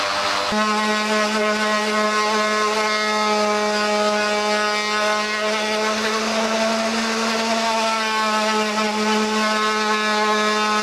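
Electric random orbital sander running steadily against a Yamaha FZR motorcycle fairing, sanding down paint and Bondo filler: a continuous motor whine over a steady hum. About half a second in, a slightly different, lower-pitched sander sound gives way to it.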